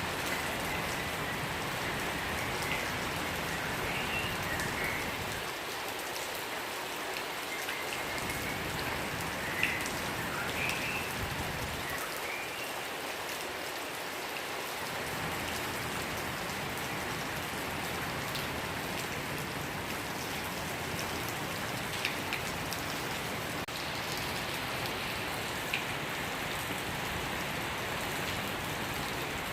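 Steady rain falling, with a few short bird chirps in the first ten seconds or so and an occasional sharp drip.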